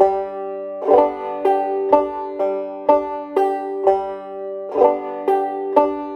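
Five-string banjo played clawhammer style in a drop-thumb pattern: the index finger strikes the first string, the thumb drops to the third string, the index strikes again, and the thumb returns to the fifth string. The notes come in a steady, even rhythm of about two strokes a second.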